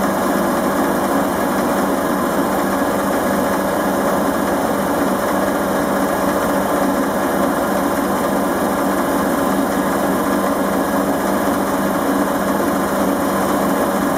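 Einhell wood lathe running steadily, a constant motor hum, with a beech spindle spinning while steel wool is held against it to smooth and polish the wood.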